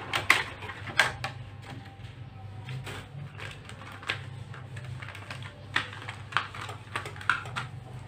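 Clear plastic clamshell packaging clicking and crackling as a coiled silicone neon strip light is handled and pulled out of it by hand: scattered, irregular clicks over a low steady hum.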